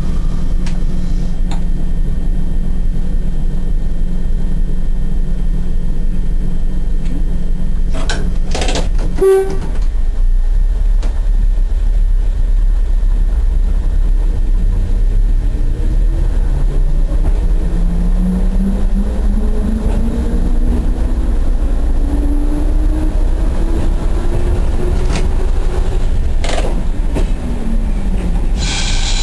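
Diesel train engine heard from the driver's cab, running with a steady low drone while the train moves slowly, with a brief sharp sound about nine seconds in. From about halfway the engine note climbs slowly as the train picks up speed, then drops near the end.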